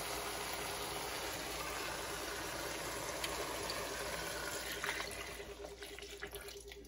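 Milk poured from a glass bowl into a hot pot of sautéed onions and spinach: a steady stream of liquid that tapers off and stops near the end.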